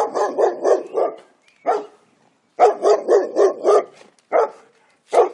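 A dog barking in quick runs of five or six barks, about four a second, with single barks between the runs.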